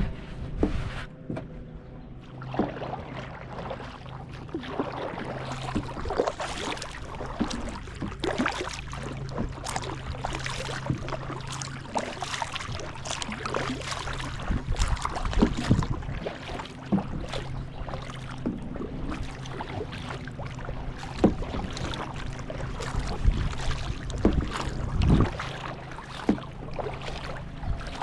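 Kayak being paddled: irregular splashes and drips of the paddle in the water and small knocks on the hull, over a steady low hum.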